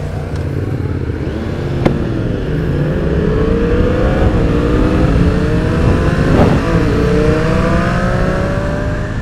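Motorcycle engine accelerating through the gears, its pitch rising in several sweeps and dropping back at each upshift, over rushing wind noise. A single sharp click comes about two seconds in.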